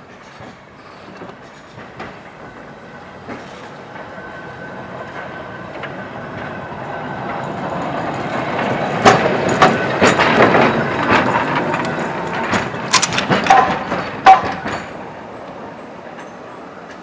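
Sunderland 16, a 1900 double-deck electric tram, running past close by. Its rumble builds as it approaches, then a run of sharp clacks and rattles from its wheels on the rails as it goes by, fading as it moves off.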